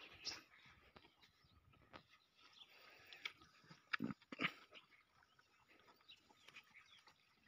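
Water buffalo licking her newborn calf: faint, wet, scraping licks, with two sharper clicks about four seconds in.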